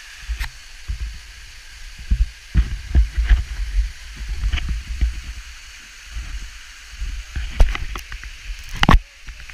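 Waterfall splashing into a rock pool as a steady hiss, under irregular low rumbling bumps and sharp clicks of the action camera being handled and buffeted on its microphone; the loudest click comes near the end.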